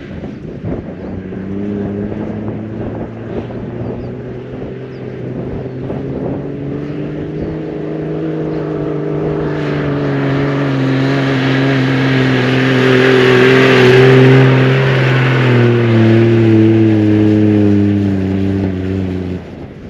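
Toyota LandCruiser 80 Series engine working hard as the four-wheel drive climbs a soft sand dune toward the listener. It grows steadily louder to a peak about two-thirds of the way through, with a rushing hiss over it as it comes close, and cuts off suddenly near the end.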